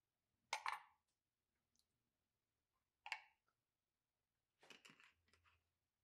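Small kitchen handling sounds: a knife tapped on a wooden cutting board about half a second in and again near three seconds, then a quick run of small clicks as a glass spice shaker is picked up and handled near the end.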